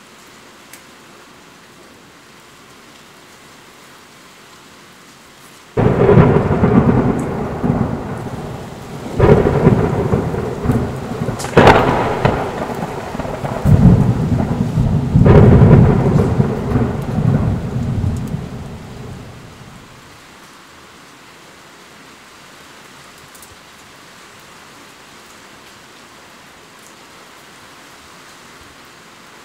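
Thunderstorm: steady rain falling, broken about six seconds in by a sudden loud thunderclap that rolls on in several more crashes and rumbles for about fourteen seconds before dying away to the rain again.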